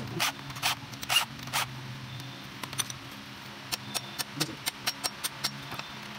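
Hammer tapping on a stripped Hyundai D4BX engine block: a few sharp metallic strikes in the first second and a half, then lighter quick taps and clicks, several a second, over a steady low hum.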